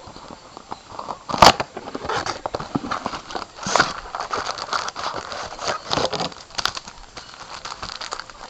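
A trading-card blaster box's cardboard and plastic packaging being torn open and crinkled by hand: a run of irregular crackles and rips, with a sharp snap about a second and a half in.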